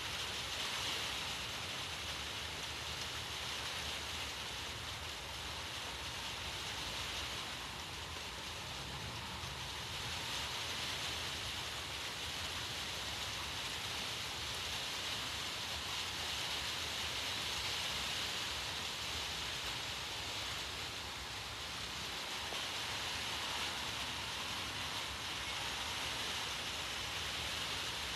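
A steady, even outdoor hiss that swells and fades gently every few seconds, with no thunderclaps.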